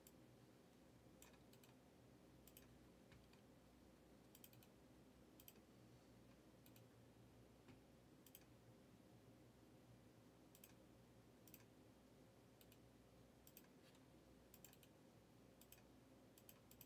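Near silence with faint computer keyboard and mouse clicks, irregular, about one a second and sometimes in pairs, over a faint steady hum.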